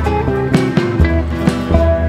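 Background music: an instrumental with plucked guitar over a steady beat.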